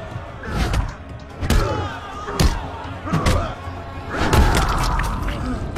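Fight-scene punch and kick impact effects: about half a dozen heavy hits landing a second or so apart, over dramatic film score music.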